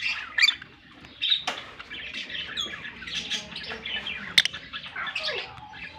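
Pet African lovebirds chirping and squawking in quick, overlapping high calls, with two sharp clicks, the louder one just past four seconds in.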